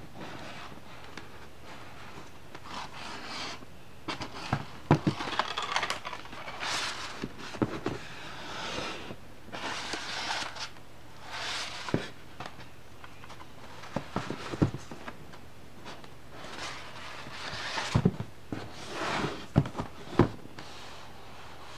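Paper-and-card pop-up book being handled: pages turned and folded, the pop-up pieces rustling and scraping, with several sharp knocks as the book is moved and closed.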